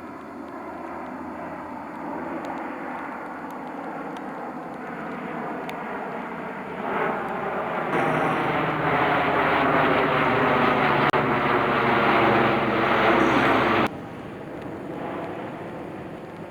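Fixed-wing aircraft's engines droning as it flies over, with a slowly falling pitch. It gets much louder about seven seconds in, then cuts off suddenly about fourteen seconds in.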